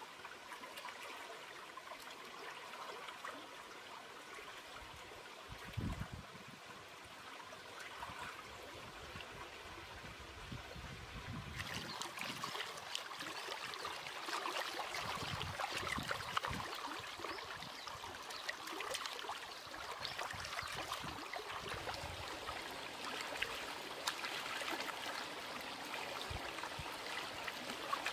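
Shallow stream trickling over rocks. About twelve seconds in the sound turns louder and closer, with splashing and sloshing as hands wash a raw beef liver in the stream water.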